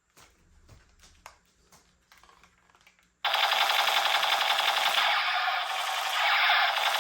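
A few light plastic clicks of a toy gun being handled, then about three seconds in a sudden continuous rapid rattle of toy-gun full-auto firing that keeps going.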